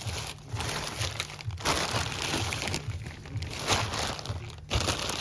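Plastic grocery packaging crinkling and rustling in irregular bursts as it is handled.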